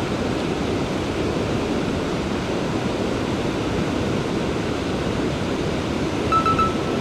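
Steady rush of a mountain river's flowing water, with a short high two-note chirp near the end.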